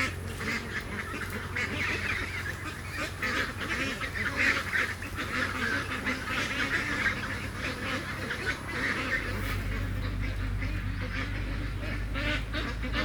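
A flock of ducks quacking continuously, many short overlapping calls.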